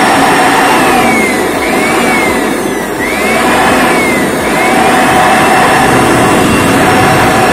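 Electric blower running steadily, forcing air through a homemade wolf-howl exhaust pipe, with a whistle that falls and rises several times in the first few seconds. The test falls short: the welder judges the bent part of the pipe not set low enough yet.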